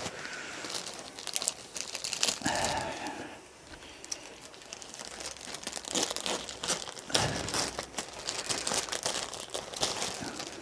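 Packaging being opened and unwrapped by hand: irregular crinkling and rustling, with a short quieter spell about four seconds in.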